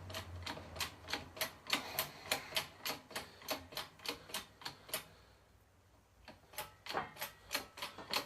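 Bearing press worked by hand to press a new bearing onto a differential part, giving rapid, even clicking at about four clicks a second. The clicking pauses briefly about five seconds in, then starts again.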